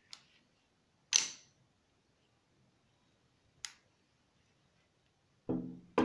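Spring-driven automatic stiletto knife (lever-lock leverletto) clicking as it is worked: a loud, sharp snap about a second in as the blade flies open and locks, a smaller click a few seconds later, and a duller knock with a low ringing tone near the end.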